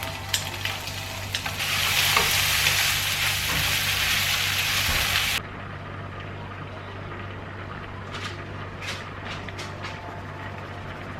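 Food sizzling in a hot frying pan, a loud, even hiss that starts about a second and a half in and cuts off suddenly a few seconds later. A few light clicks follow near the end.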